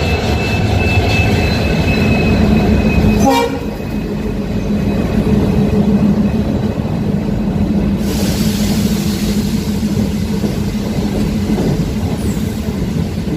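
Passenger train hauled by a pair of diesel locomotives pulling in along the platform: the locomotive engines run past, then the coaches roll by with a steady rumble. A high hiss comes in about eight seconds in.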